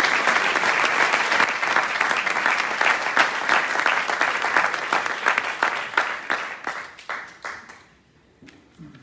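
Audience clapping: a roomful of people applauding, dying away about seven to eight seconds in.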